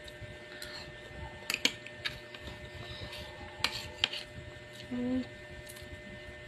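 A spoon clicking and scraping against a plastic plate as a child scoops up food, with a handful of sharp clicks spread through.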